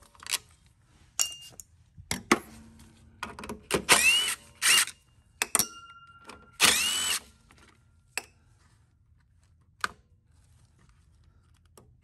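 Cordless drill with a socket bit backing out the bolts that hold the air filter housing on a small mower engine. It runs in several short bursts, each rising in pitch as the motor spins up. A few light clicks follow near the end.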